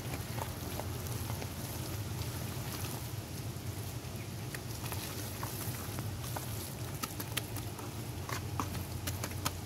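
Hands squelching and kneading wet, sloppy mud in a plastic tub, with many scattered small wet clicks and splats.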